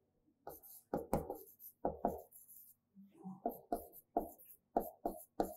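Writing on a board: a string of short, irregular taps and strokes as an equation is written out.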